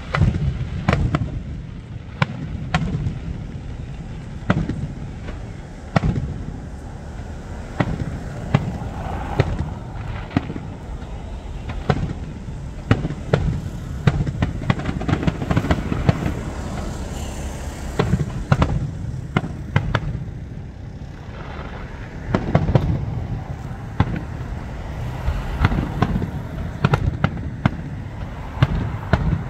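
Aerial fireworks display: a rapid barrage of shell bursts, dozens of sharp bangs, often several a second, over a continuous low rumble of echoing booms.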